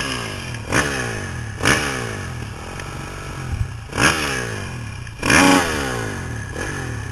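Dirt bike engine idling and being blipped about five times, each throttle blip a quick rise and fall in pitch, the biggest about five seconds in.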